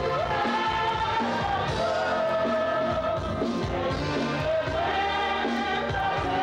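A group of women singing a gospel song through handheld microphones, with long held notes, over instrumental accompaniment.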